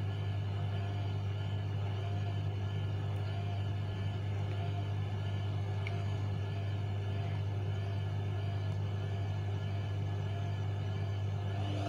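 Zanussi front-loading washing machine's drum motor running with a steady low hum, turning the drum at low speed through a load choked with excess suds during the spin. The hum has a slight regular waver.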